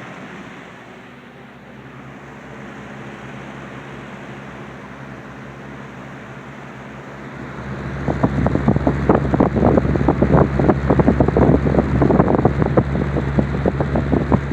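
Lasko 3733 20-inch box fan running on high speed: a steady rush of air with a low motor hum. About eight seconds in it gets much louder, with irregular buffeting and a stronger hum, like the fan's airflow hitting the microphone at close range. This cuts off abruptly at the very end.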